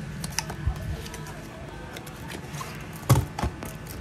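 Cardboard box being opened and handled: packaging rustling with a few light knocks, the loudest about three seconds in, over faint background music.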